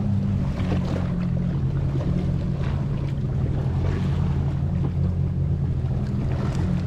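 Jet ski engine running at steady low revs, a continuous low hum, with a hiss of wind and water over it.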